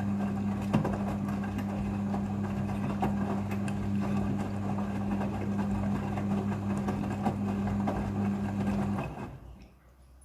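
Midea front-loading washing machine running: a steady low hum with scattered clicks, which dies away about nine seconds in.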